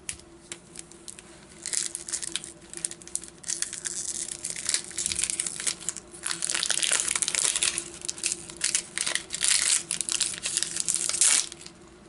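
Close, crinkling and crumpling of packaging or paper, as in handling a card-pack wrapper, in a long run of rustles that starts about two seconds in and stops just before the end, loudest in the second half. A faint steady hum lies underneath.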